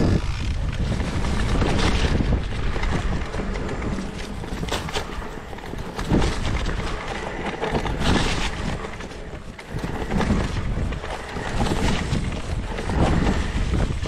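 Mountain bike being ridden over rough ground: wind buffets the microphone in a steady rumble, and the bike knocks and rattles over bumps every second or two.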